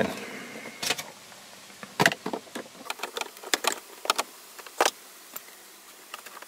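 Irregular light clicks and knocks of a screwdriver and fingers against the plastic dashboard trim while turning out the instrument cluster's Torx screws.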